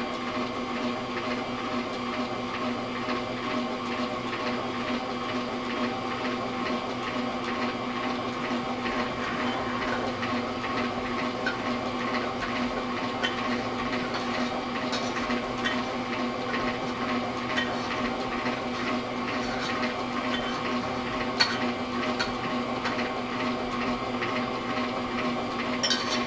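Electric stand mixer running steadily, its whisk attachment whipping egg whites, with an even motor hum.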